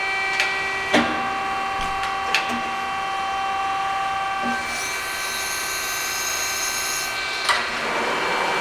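Donewell hydraulic CNC press brake running through its program: a steady whine of several tones from the hydraulic drive that shifts in pitch pattern twice, a hiss lasting a couple of seconds past the middle, and a few sharp clicks as the ram and back gauge move from step to step.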